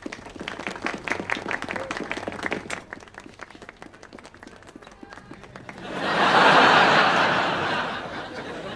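Studio audience laughing in quick bursts, then a louder swell of laughter and applause about six seconds in that dies down near the end.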